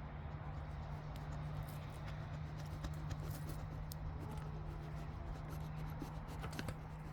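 Scattered soft clicks and taps from a lamb close to the camera, nosing at it. A steady low hum runs underneath.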